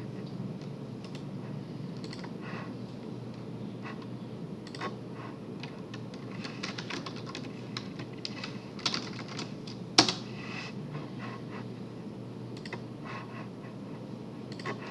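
Typing on a computer keyboard in short irregular bursts of key clicks, with one sharper, louder click about ten seconds in.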